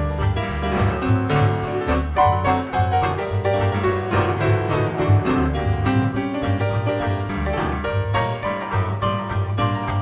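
Traditional Dixieland jazz band playing live, an instrumental passage over a steady bass line.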